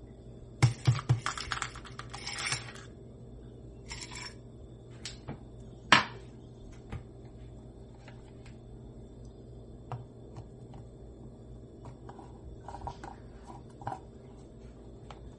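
Kitchen handling sounds: a quick run of small, hard clattering clicks lasting about two seconds, a single sharp knock about six seconds in, then scattered light clicks and taps.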